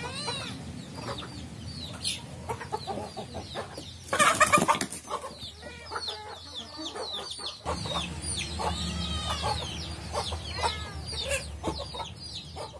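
A flock of free-range chickens clucking, with chicks peeping in many short, high chirps. A louder, harsher squawk comes about four seconds in.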